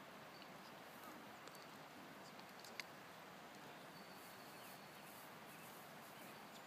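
Near silence: quiet outdoor ambience with a few faint high bird chirps and a single sharp click a little under three seconds in.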